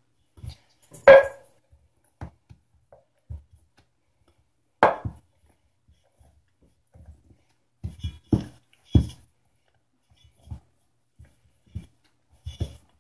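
Scattered knocks and thumps of hands working pie dough in a stainless steel pot, the pot knocking now and then; the loudest knocks come about a second in and just before five seconds, with a few more around eight and nine seconds.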